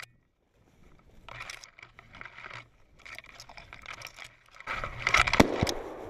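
Footsteps crunching through dry leaves and brush in irregular spells. About five seconds in, a louder sudden flurry of rustling and rushing noise with two sharp knocks.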